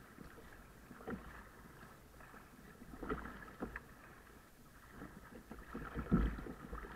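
Choppy sea water lapping and splashing against a kayak's hull as it moves, with a few sharper splashes.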